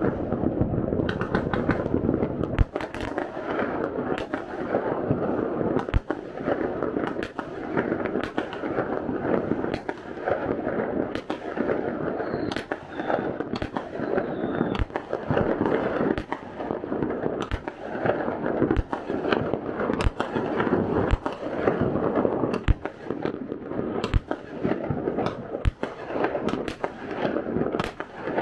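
Fireworks going off all over the city at once: a continuous din of distant bursts and crackling, with sharp bangs about once a second, some from shells bursting close by.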